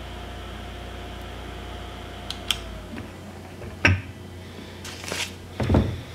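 A mini nail-wrap heater's fan hums steadily, then after two sharp clicks it is switched off and its hum slides down and stops about three seconds in. Two loud knocks follow, near four seconds and near the end, with rustling between them as the heater is moved and hands touch the table.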